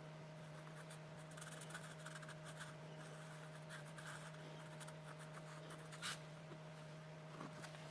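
Faint light scratching and ticking from hand work, over a steady low hum, with one sharper tick about six seconds in.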